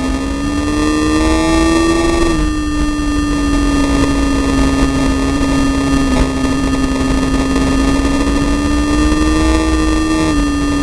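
Track vehicle engine at high revs on a lap: the pitch climbs, drops with an upshift about two seconds in, holds high, and drops again with another shift near the end. A heavy wind rumble on the microphone runs underneath.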